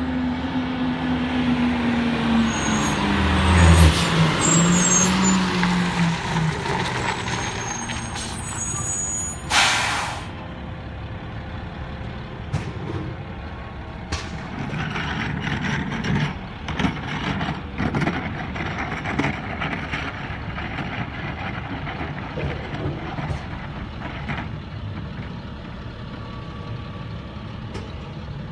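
Garbage truck: its diesel engine runs down from higher revs over the first few seconds, its air brakes give a short sharp hiss about ten seconds in, then a run of knocks and clanks over the engine's steady running.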